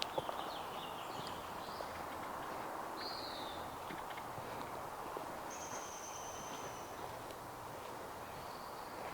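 Small wild birds calling in woodland: scattered thin, high whistles and chirps, one longer steady whistle in the middle, over a steady background hush of the outdoors.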